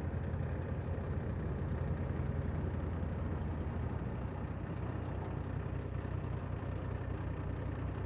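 Steady low engine drone of the truck carrying the Praying Mantis, a 747 cockpit trainer mounted high above the ground, as it drives slowly across the airport ramp.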